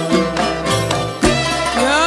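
Yemeni Lahji folk music: hand drums and a tambourine beat a steady rhythm, about two strokes a second, under a continuous melody.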